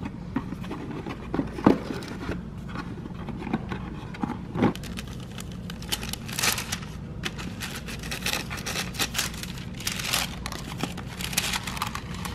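Tissue paper rustling and crinkling as it is unfolded from a cardboard pastry box, with a couple of sharper knocks in the first five seconds.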